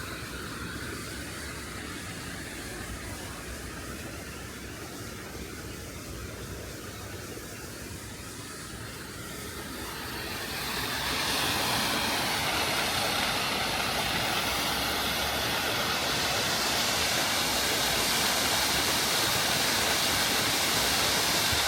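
Steady background noise, then, about halfway through, the rush of the Düden Waterfall's falling water swells in and holds as a loud, even hiss.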